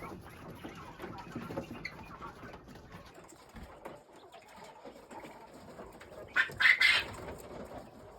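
Farm poultry calling softly and continuously, with one short, louder burst about six and a half seconds in.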